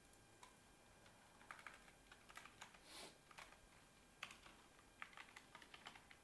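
Faint typing on a computer keyboard: irregular keystrokes in short runs, with pauses between them. There is a brief soft rush of noise about three seconds in.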